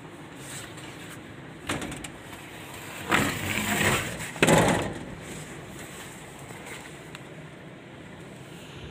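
Toshiba service elevator's doors sliding shut after the door-close button is pressed: a short knock, then two loud sliding, banging stretches about three and four and a half seconds in, over the car's steady hum.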